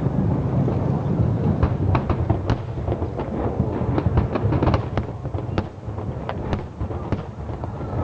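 Aerial fireworks bursting in a continuous run of overlapping deep booms that rumble like thunder, with many sharp cracks scattered through. It eases off slightly after about five seconds.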